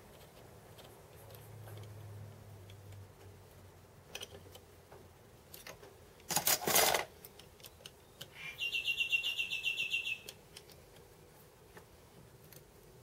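Metal parts of a home-built milling machine tail stand handled and fitted together on a wooden bench: light clicks, then a single loud metal clank about six and a half seconds in. Near the middle a bird's rapid high-pitched chirping trill runs for about two seconds.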